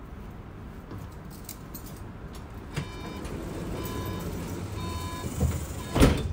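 Bombardier Flexity tram's door-closing warning beeping in three short bursts over a steady low rumble from the standing tram. The doors then shut with a loud thump near the end.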